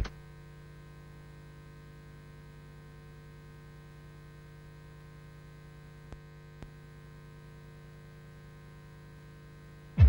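Low steady mains hum from the VHS tape playback, with a faint hiss and two faint clicks a little after halfway.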